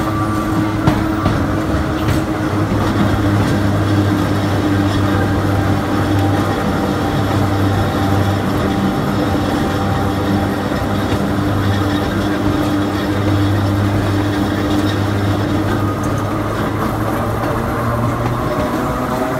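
Hakone Tozan Railway Moha 1 electric railcar running slowly through a sharp curve, heard through an open window: the steady hum and gear whine of its nose-suspended traction motors over the running noise of the wheels on the rails.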